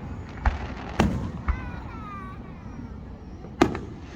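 Aerial fireworks going off: four bangs with trailing rumbles, the loudest near the end, and a short falling whistle about halfway through.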